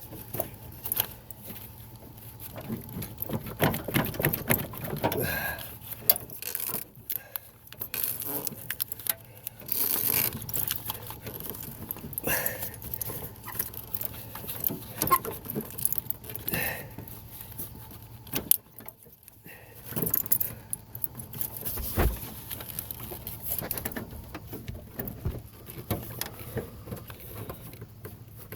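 Irregular clicking, rattling and scraping of plastic and metal as an electrical wire cover is worked into an AC line quick-connect fitting to release it.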